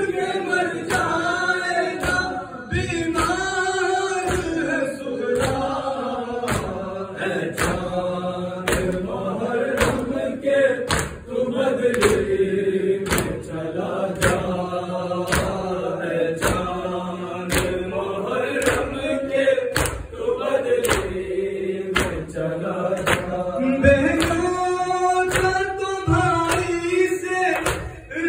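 Men's voices chanting an Urdu noha (mourning lament) together, led by a reciter on a microphone. Sharp slaps of matam (chest-beating) keep a steady beat of about three every two seconds.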